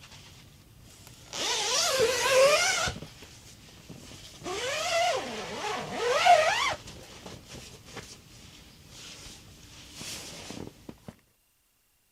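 An animal's drawn-out, wavering calls, three of them, each bending up and down in pitch.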